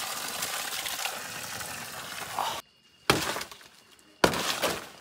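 Leaves and plant stems rustling as they are pushed and handled. Then two sharp snaps about a second apart, each dying away quickly, like stalks breaking.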